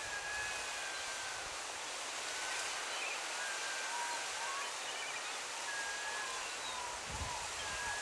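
Steady hiss of white water rushing over a small waterfall on a salmon creek, with faint short high-pitched calls over it.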